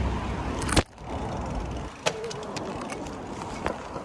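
City street traffic with a low rumble on the microphone, broken off by a loud knock from the handheld camera being moved about a second in; after that, lighter street noise with scattered small clicks of handling.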